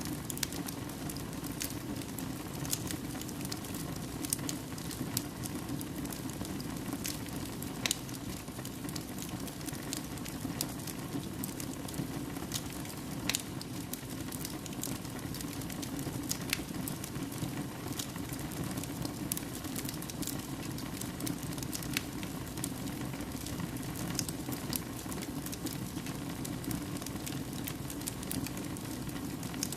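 Fire burning in a fireplace: a steady low rumble of flames with irregular sharp crackles and pops scattered throughout.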